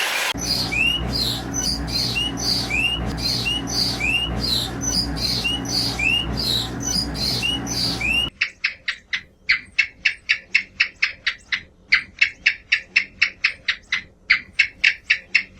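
Bird calls in two parts. First a series of short rising chirps, roughly two a second, over a steady low hum. Then, after a sudden change, a quick run of sharp repeated calls, about four a second.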